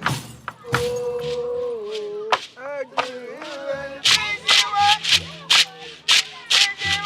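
Live traditional West African music: voices chanting and holding long notes, joined about four seconds in by sharp percussion strikes at about two a second.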